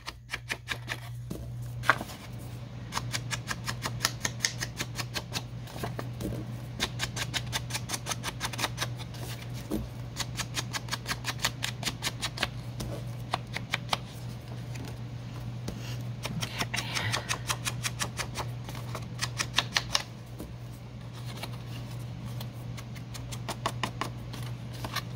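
Foam ink blending tool dabbing quickly on Distress ink pads and along paper edges to distress them: runs of soft taps, several a second, with short pauses between runs. A steady low hum lies underneath.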